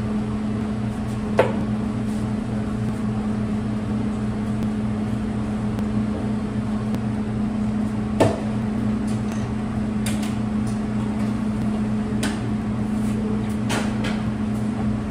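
Steady hum of running bakery machinery, with a few scattered knocks and clatters from work nearby, about a second and a half in and several more in the second half.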